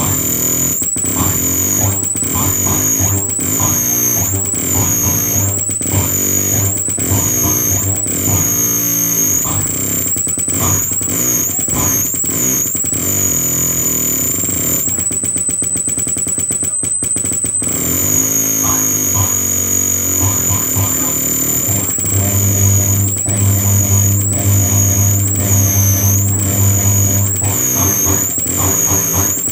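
Live electronic noise music: a distorted synthesizer and effects drone under a high whistling tone that dips about once a second, broken by short clicks. The whistle holds steady for a few seconds about halfway through, and a heavy low hum swells in later on.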